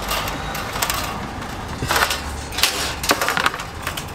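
Metal sheet pans and wire cooling racks clattering and scraping as they are laid out on a table, with a cluster of sharp metallic knocks around two to three and a half seconds in.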